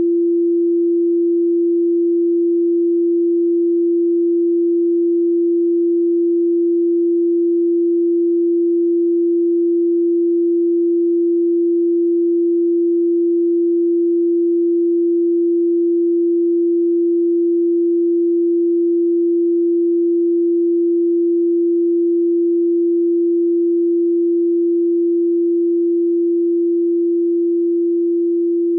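A steady, electronically generated pure sine tone at 341.3 Hz, one unchanging pitch, dropping slightly in level near the end.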